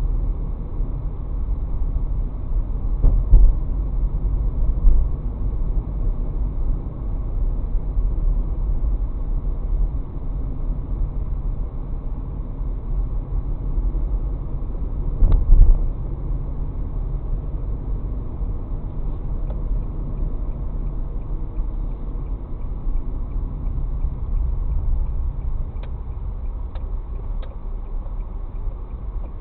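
Low, steady rumble of a moving car's road and engine noise heard from inside the cabin, with a short loud thump about three seconds in and another about fifteen seconds in.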